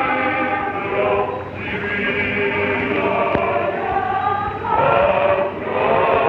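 A group of men and women singing together in chorus, holding long notes that change every second or so, recorded on an early sound film with a muffled, narrow sound.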